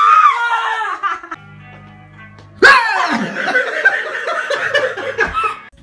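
A woman's high-pitched scream trailing off during the first second. From about two and a half seconds in, loud laughter over music.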